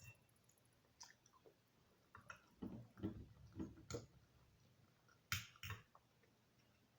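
Quiet eating sounds: a person chewing food, with scattered small clicks and taps, the sharpest two close together about five seconds in.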